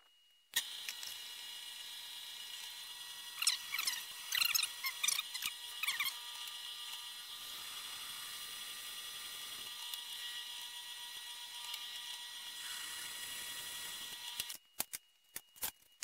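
Drill press running, drilling small holes through steel tubing and flat bar, a steady whine with several seconds of sharp squeals from the bit cutting the metal about three seconds in. The motor cuts off near the end, followed by a few light clicks.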